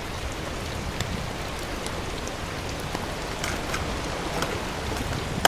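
Steady rush of water, with a few scattered small clicks.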